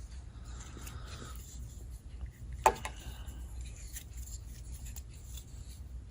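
Gordon 20-in-1 steel multi-tool being handled and its tools folded closed: faint rubbing and small clicks, with one sharper click about two and a half seconds in.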